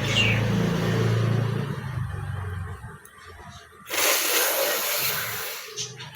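A person blowing their nose forcefully: one long rush of air lasting under two seconds, about four seconds in. Before it there is a low steady hum, and a short sharp sound follows the blow.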